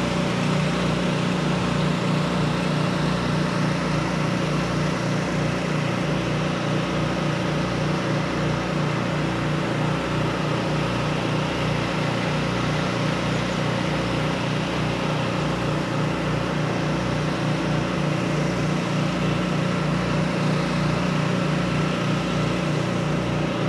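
A steady mechanical hum of a running engine or motor, with a regular low throb, unchanged throughout.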